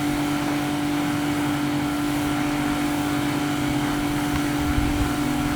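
Steady engine hum at a constant pitch, with no revving.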